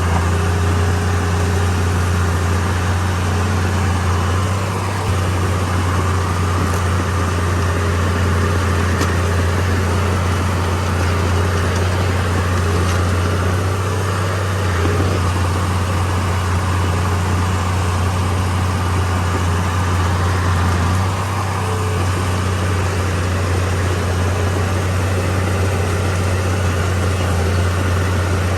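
Heavy diesel engine of earthmoving machinery running steadily with a deep, even drone, easing briefly twice.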